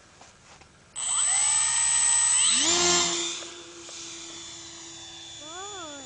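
Brushless outrunner electric motor (Turnigy 35-36C 1100kv) on a Multiplex Blizzard RC warmliner, driving a 10x6 folding propeller. About a second in it spools up with a loud, high whine for the hand launch, and its pitch climbs again a moment later. After about three seconds it fades to a fainter steady whine as the plane climbs away, with a brief rise and fall in pitch near the end.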